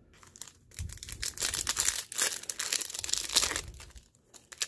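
A foil Yu-Gi-Oh Speed Duel booster pack being torn open and crinkled by hand, a dense, irregular crackling of the wrapper starting about a second in and stopping about four seconds in.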